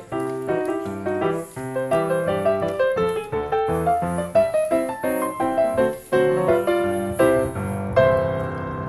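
Background piano music: a quick melody of short notes that settles on a held chord near the end.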